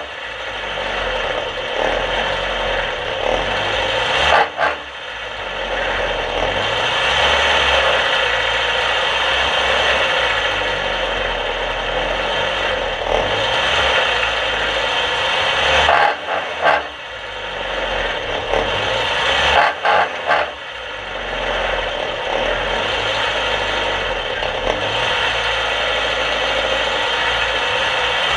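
Dirt-track race car's engine idling while stopped, heard from inside the cockpit as a steady noise, with a few brief dips in level.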